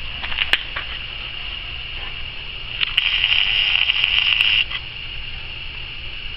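Steady high-pitched insect drone that swells much louder for about a second and a half near the middle, then falls back, with a few faint clicks.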